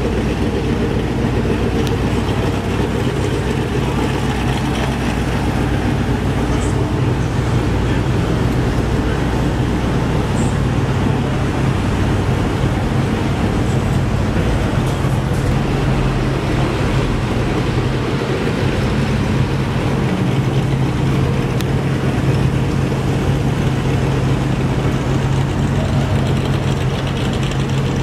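A vehicle engine running at a steady idle, a low even hum with road-traffic noise around it.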